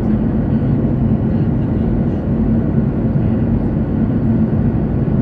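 Airliner jet engine noise: a steady, loud drone with a constant low hum.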